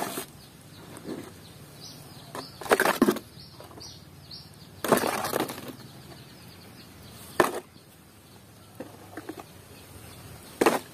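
Muddy plastic toys being picked up and dropped into a plastic basket: about five short clatters of plastic knocking on plastic, a couple of seconds apart, with softer handling rustle between.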